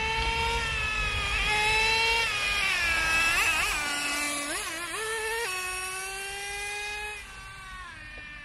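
Traxxas Revo 3.3 nitro RC truck's two-stroke TRX 3.3 glow engine running at high revs on a speed run, a high-pitched whine. The pitch dips and wavers as the truck passes close by about four seconds in, then it holds steady and fades off after about seven seconds as the truck runs away.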